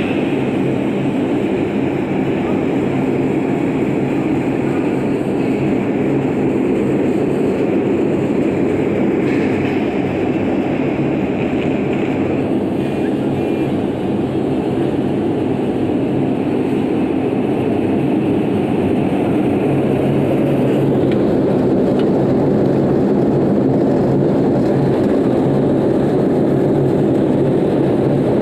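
Large stainless-steel swing sieve running under load, black granular material sifting across its screen deck: a loud, continuous mechanical rumble with a steady low hum.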